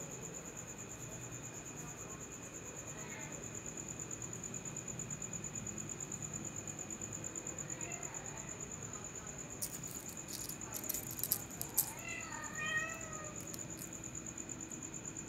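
Kitten meowing: faint mews a couple of times, then a clearer mew about twelve seconds in, over the steady pulsing chirp of crickets. A few sharp clicks and rustles come just before the clearest mew.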